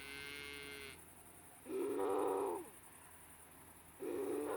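Cattle mooing: two calls of about a second each, one near the middle and one near the end, after a fainter, higher-pitched call at the start.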